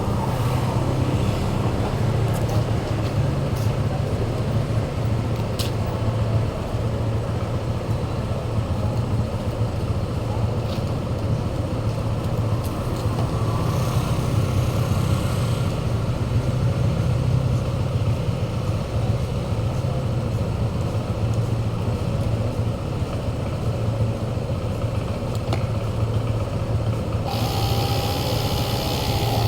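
A motor running steadily with a low hum and an even pulse. A hissier noise joins it near the end.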